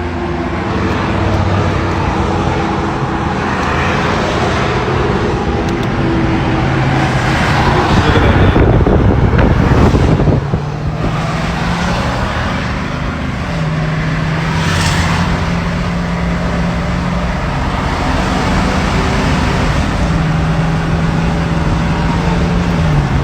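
A road vehicle driving: the engine runs over steady tyre and road noise, and its pitch steps up and down a few times. A louder rush of noise comes about eight to ten seconds in.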